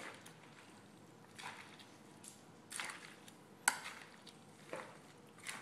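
Utensils tossing pasta and shrimp in a bowl: a few soft, wet squishes and scrapes, spaced irregularly, with one sharp click of utensil against the bowl about two thirds of the way in.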